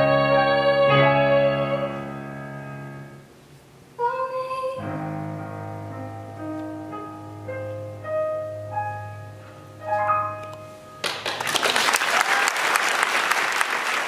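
Stage piano playing the closing bars of a piece: held chords fading away, a short pause, then a few slow single notes. About eleven seconds in, audience applause breaks out and continues.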